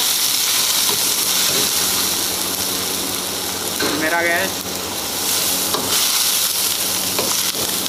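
Vegetables and meat sizzling and hissing in a hot carbon-steel wok on a gas burner, stirred with a metal ladle.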